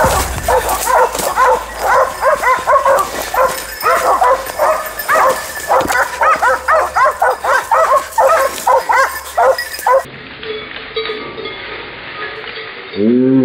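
Hunting dogs baying rapidly at a wild boar, several barks a second, a sign that the boar is being held at bay. About ten seconds in the barking stops abruptly and a quieter stretch follows, with one short falling cry near the end.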